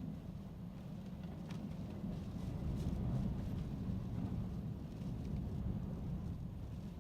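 Gusty storm wind rumbling, rising in a strong gust about two and a half seconds in and easing after, with a few faint ticks of rain.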